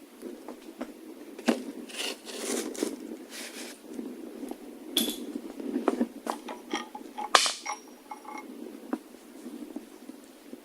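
Metal parts and tools being handled: irregular clinks, knocks and scraping. The loudest is a sharp clank about seven seconds in, followed by brief metallic ringing.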